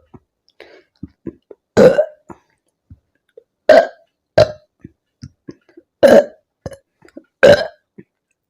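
A young woman burping loudly five times in a row, soda burps from drinking carbonated lemon soda, each short and coming about every one to two seconds, with small mouth clicks between.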